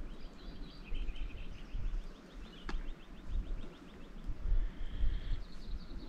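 Small birds calling, one giving a fast trill of about ten notes a second for the first half, others chirping higher and a held note near the end, over a gusty low rumble of wind on the microphone. A single sharp click about halfway through.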